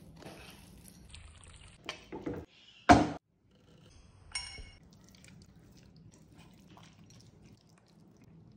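Hand mixing marinated mutton in a clay bowl, with wet squishing and small clicks, then one sharp knock about three seconds in and a short ringing clink about a second later. Faint handling sounds follow.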